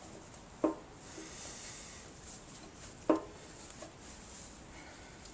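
Sheet-metal gas tank giving two sharp pops with a short metallic ring, about two and a half seconds apart, as the steel flexes under a clamp pressing out a dent.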